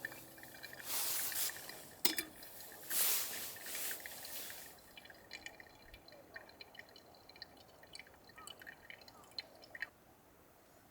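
Liquid being poured in two short hissing bursts, then light dripping with small scattered ticks.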